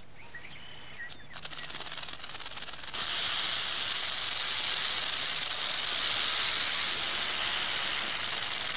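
Rattlesnake shaking its tail rattle: a continuous dry, rapid buzz, the snake's defensive warning. It starts faintly just over a second in and turns much louder about three seconds in.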